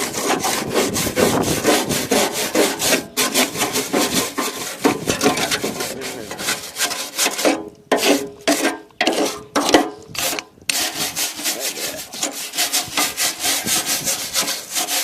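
Hand scraping on a metal lawn mower deck, rapid rasping back-and-forth strokes taking off rust and old paint where the deck is to be welded. The strokes briefly slow to a few separate strokes about halfway through, then go back to rapid scraping.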